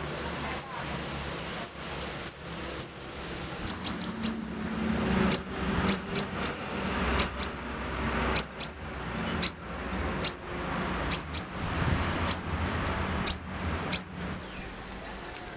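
A sogon (sogok ontong sunbird) calling: a string of short, sharp, high chirps, each dropping quickly in pitch, some single and some in quick runs of two to four, with the last note about a second before the end.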